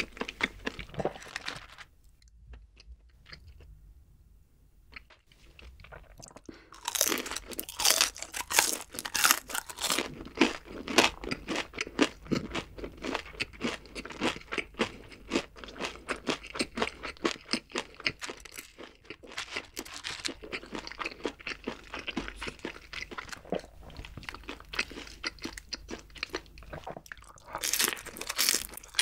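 Close-up chewing and crunching of fried battered chicken feet. The sound is quieter for a few seconds early on, then dense and crunchy, with a fresh bite into a crisp piece near the end.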